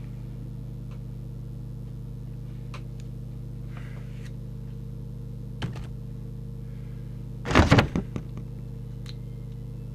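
Steady low electrical hum from mains-powered electronics, with a few faint clicks and, about seven and a half seconds in, a brief louder knock.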